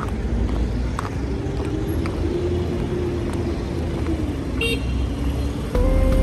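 City street traffic: cars passing with a steady low rumble, and a short horn-like toot near the end.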